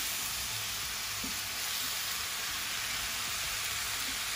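Stir-fry ingredients sizzling steadily in hot oil in a pan.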